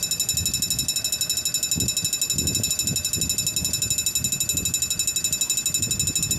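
Level crossing warning bell ringing with rapid, even strokes while the crossing is active.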